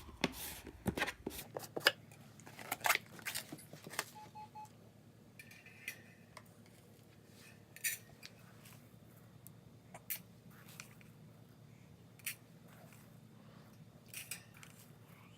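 Scattered light clicks and taps from a birdcage and its food dish being handled as food is put in for parakeets.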